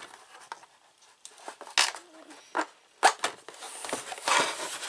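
A utility knife cutting open packaging: scattered clicks and short scrapes, then longer, louder rasping cuts through tape and cardboard from about three seconds in, with the packaging rustling as it is handled.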